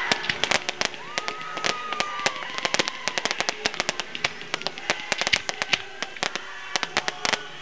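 Fireworks display: a rapid, irregular string of sharp cracks and pops from exploding shells, growing denser in the second half, with a thin whistle for about a second and a half early on.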